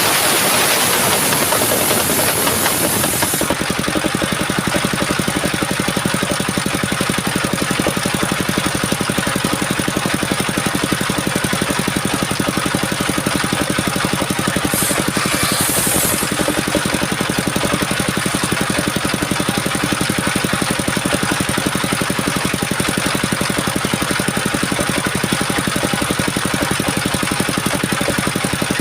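Engine of a portable circular-saw sawmill running steadily, with a loud hiss over roughly the first three seconds and a short hiss again about halfway through.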